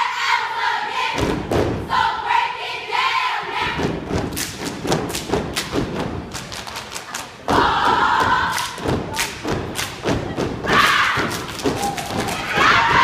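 A children's step team stomping and clapping in a fast rhythm, with the group shouting chanted calls in unison several times.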